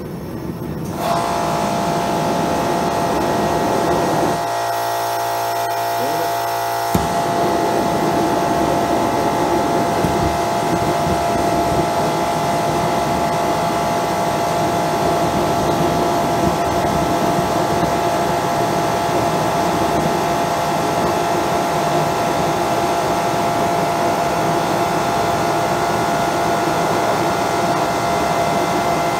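Homemade micro jet burner running on a high-velocity air jet and propane: a steady rushing roar of air and flame with a whistling tone that comes in about a second in and holds. The low rumble drops out briefly between about four and seven seconds in.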